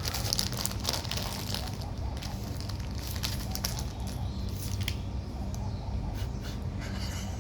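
Wrapping or packaging crinkling and rustling in irregular crackly bursts, as it is torn and pulled open.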